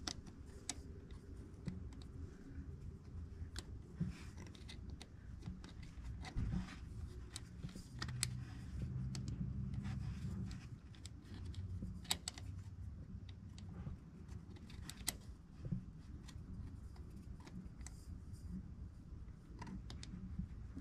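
Scattered small metallic clicks and taps of nuts being fitted by hand onto the bolts behind a driveshaft adapter plate, over a low rumble that swells slightly in the middle.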